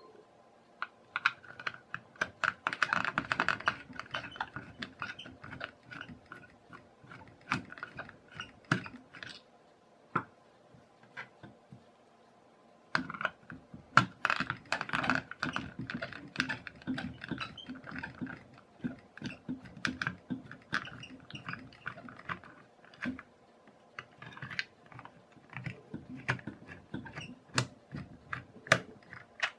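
Crosshead screwdriver unscrewing small screws from a hard plastic toy shell: quick runs of clicks and creaks as the driver tip and screw turn in the plastic, with a quieter spell in the middle.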